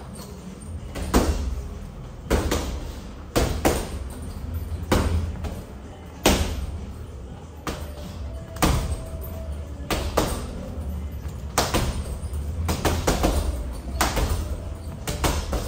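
Boxing-glove punches landing in a gym: irregular sharp smacks, roughly one a second and sometimes two in quick succession, over a steady low hum.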